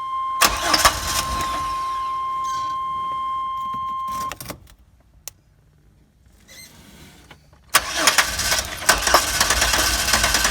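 Chevy Astro van's 4.3 V6 running with a steady high tone, cut off about four seconds in; after a few quiet seconds the engine is cranked over again with the starter.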